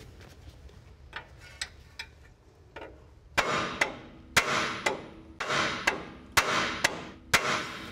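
Steel hammer striking the top of a 1974 Ford F100's front spindle to drive out the kingpin: a few light taps, then about six hard metallic blows roughly a second apart, each leaving a ringing tone. The kingpin is seized and does not come free.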